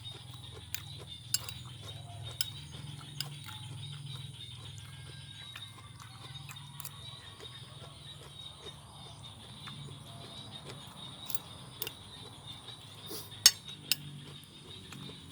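Someone eating a raw vegetable salad: irregular sharp crunches and clicks of chewing and utensils, the loudest about two-thirds of the way through, over a steady low hum.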